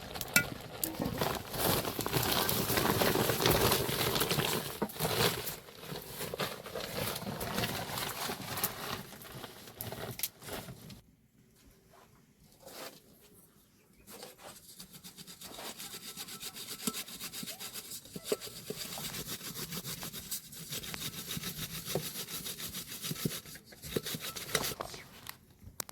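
Scraping, rubbing strokes, loud for about the first ten seconds, then after a short pause lighter and quicker.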